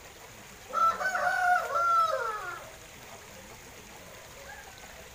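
A rooster crowing once: one loud call of about two seconds, its pitch falling away at the end.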